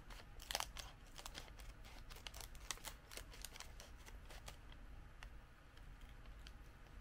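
Scissors cutting across a clear plastic snack wrapper, the film crinkling in a quick run of sharp crackles for the first four and a half seconds, then a few soft crinkles as the opened wrapper is handled.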